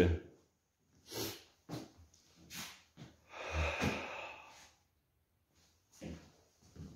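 Scattered short rustles and soft thuds from a person walking with a handheld phone, with one longer breathy hiss about three and a half seconds in.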